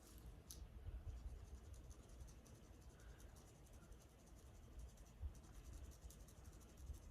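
Faint, rapid scratching strokes on a person's scalp, as dandruff flakes are worked loose.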